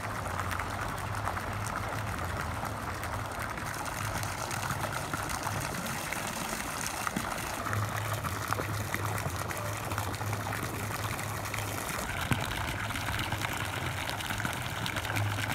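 A fountain's thin water jet splashing steadily into its stone basin, with a low hum underneath.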